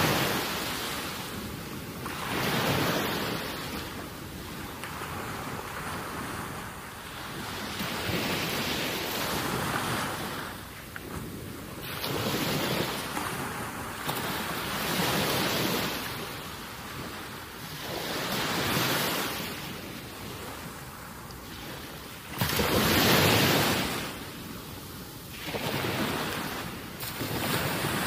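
Wind and water noise at the shore, swelling and easing every few seconds.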